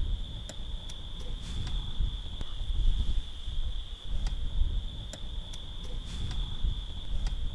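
Crickets singing at night in one steady, unbroken high trill, over a low uneven rumble.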